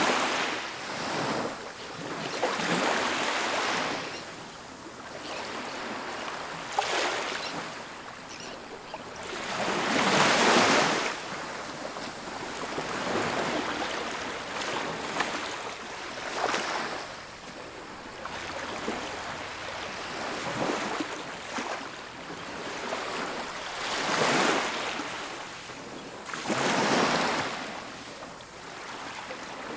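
Ocean waves breaking on a beach, one wave after another, each a rush of surf that swells and fades over a couple of seconds, the biggest about a third of the way through and twice near the end.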